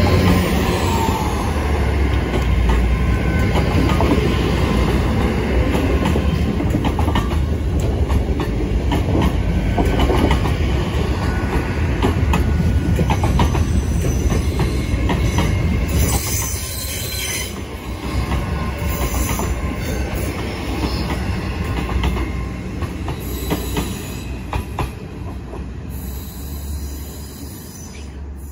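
GWR Class 802 bi-mode Intercity Express Train rolling past: its carriages and bogies running over the rails on a curve, with wheel and rail noise. Loud for the first half as the coaches go by, then fading as the last cars pull away and dropping off at the end.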